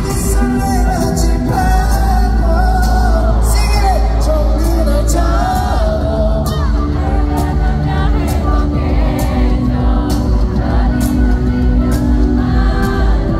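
Live pop song over the arena loudspeakers: a male singer's amplified voice carries the melody over a backing track with a steady low beat. Heard from within the audience, with faint cheering from the crowd.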